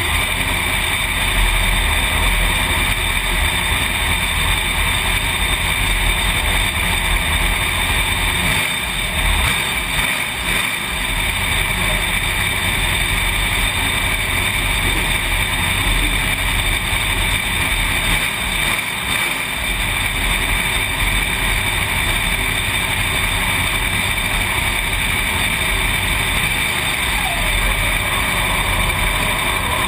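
Dirt-track race car's engine running steadily, heard from inside the cockpit with road and wind noise, easing off briefly twice.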